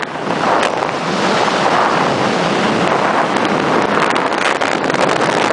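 Steady rush of wind and road noise from a Scania G420 truck moving at road speed, with wind buffeting the microphone.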